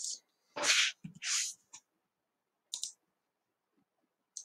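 Computer mouse clicks, a few spaced out, with two short hissing noises about a second in that are the loudest sounds here.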